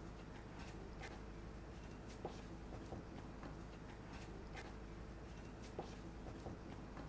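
Potato bun dough being kneaded by hand on a floured wooden board: irregular soft pats and slaps as it is lifted, folded and pressed down, over a low steady background hum.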